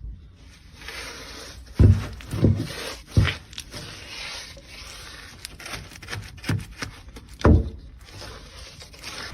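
A series of five dull, heavy thumps spaced unevenly over a steady hiss, with a few fainter clicks between them.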